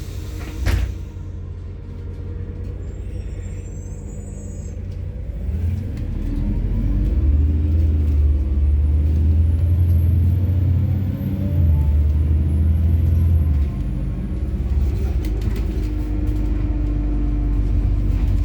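A methane-fuelled MAZ-103 city bus, heard from on board: a low engine rumble with a knock just after the start. About five seconds in, the engine note rises as the bus pulls away and runs loud for several seconds, with a brief dip. It drops back to a steadier hum near the end.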